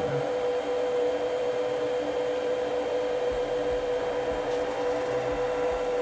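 Small cooling fan on top of a spindle inverter (variable frequency drive), just powered up, running with a steady whir and one steady tone. It is the loudest part of the system with the spindle idle.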